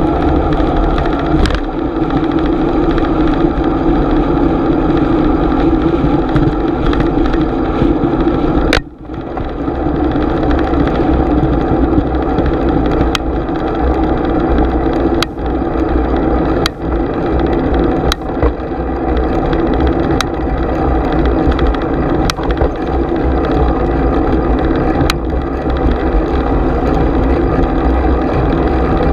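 Steady wind and road noise from a GoPro on a moving bicycle. A brief drop comes about nine seconds in, and after that a sharp click or rattle is heard every couple of seconds.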